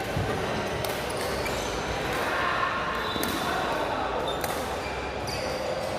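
Badminton rally in an echoing indoor hall: about four sharp racket strikes on the shuttlecock at uneven intervals, coming closer together towards the end, with brief shoe squeaks on the court floor.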